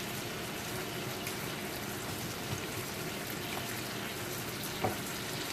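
Green bell pepper pieces frying in butter in a pan: a steady, even sizzle and bubbling. A light tap comes near the end.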